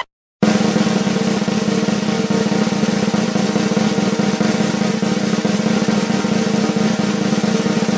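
A steady, unbroken snare drum roll, starting about half a second in.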